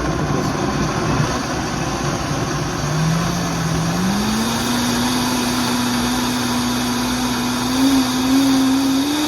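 Countertop blender motor running as it blends a thick green salsa verde. The motor hum steps up in pitch about three and four seconds in as the speed is turned up, and rises a little more near the end.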